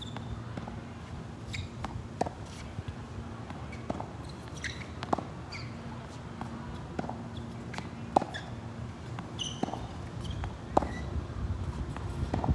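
Tennis rally: sharp pops of a racket striking a tennis ball and the ball bouncing on a hard court, about ten knocks at irregular intervals of one to two seconds.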